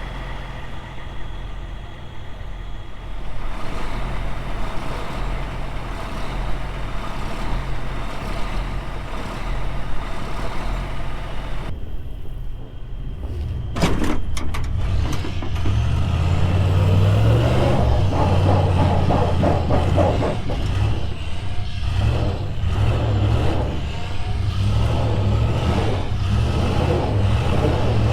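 Heavy truck diesel engine running steadily, with a sharp knock about halfway through, after which the engine is louder and deeper.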